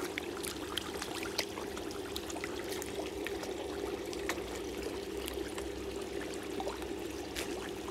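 A crowd of koi splashing and slurping at the pond surface, many small wet pops and splashes over a steady rush and low hum of running water.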